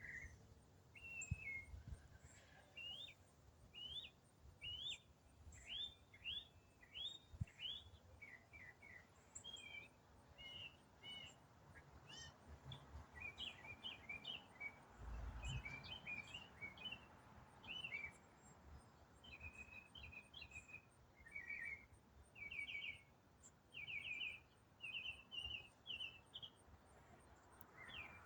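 A single songbird singing a long, unbroken, varied song: quick phrases of short high notes, several repeated in fast runs of four or five, mixed with brief trills and slurred notes, with hardly a pause between phrases. It is faint, with a brief low rumble about halfway through.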